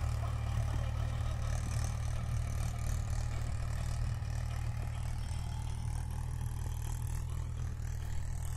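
Mahindra 575 DI tractor's four-cylinder diesel engine running steadily, working a V-pass implement that uproots cotton plants.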